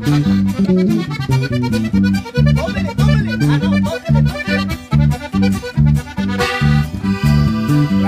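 Sierreño trio playing an instrumental passage: a three-row button accordion carries the melody over a twelve-string acoustic guitar and an electric bass keeping a steady beat of about two notes a second. Late in the passage the accordion holds long chords.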